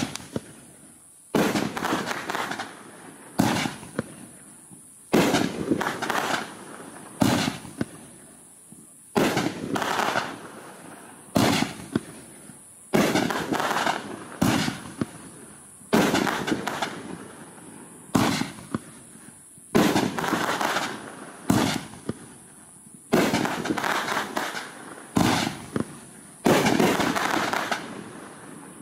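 Outer Limits 500 g nine-shot consumer firework cake firing: a sharp bang about every two seconds, each followed by a fading hiss as the shells burst.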